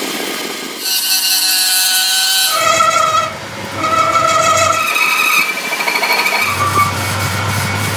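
Workshop power tools running in a string of short stretches, with high hissing noise and steady whines that change abruptly every second or two.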